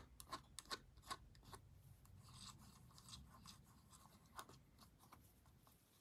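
Faint small metal clicks, about four a second, then a short scraping, as a folding knife's pivot screw is started by hand in its threads; a single click follows a couple of seconds later.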